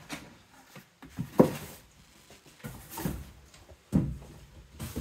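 Cardboard toy boxes and bubble-wrapped toys being handled: scattered rustles and knocks, the loudest a sharp knock about a second and a half in.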